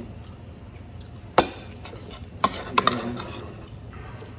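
Metal spoons clinking against a ceramic plate and a glass serving bowl as food is scooped and eaten: one sharp, ringing clink about a second and a half in, then a few lighter clinks about a second later.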